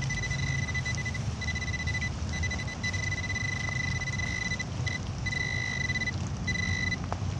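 Handheld metal-detecting pinpointer sounding a steady high-pitched alert tone, held over a target in the dug hole; the tone breaks off briefly several times as the probe moves, then stops near the end. A steady low rumble runs underneath.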